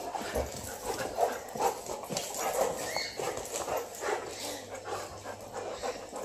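A dog whining in short, repeated sounds, eager to be taken for a walk.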